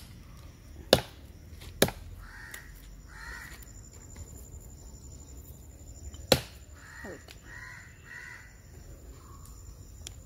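Cleaver chopping goat meat on a wooden block: four sharp chops, three in the first two seconds and one about six seconds in. Between the chops, crows caw in two short bouts.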